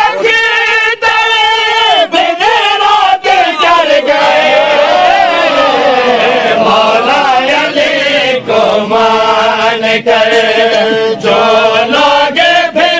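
Men's voices chanting an Urdu qasida, a sung line with long held notes that bend up and down.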